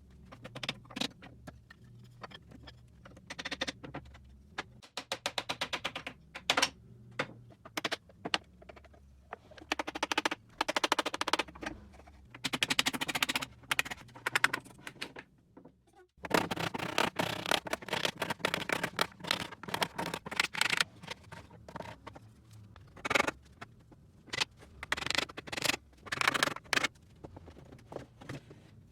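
Hand woodworking on wooden joinery: bursts of rapid clicking and knocking strokes from hand tools working the wood, with single sharp knocks between them. A faint low hum under the strokes stops abruptly about 16 seconds in.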